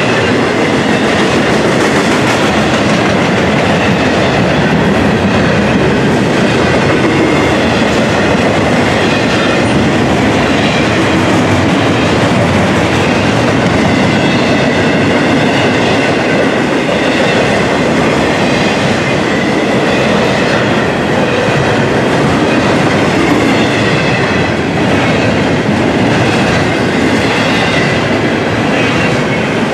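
Double-stack intermodal container train rolling past, its steel wheels clacking and rumbling on the rails in a steady, loud run of passing cars.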